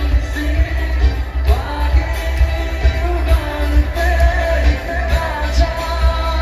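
Live pop-rock band playing with a singer, electric guitars and drums over a heavy, steady bass.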